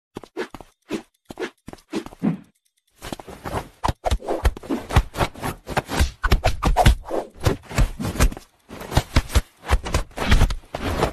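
Irregular scuffling and rustling as a hand tussles with a cat on a fabric sofa: many short, uneven scrapes and rubs, with two brief pauses.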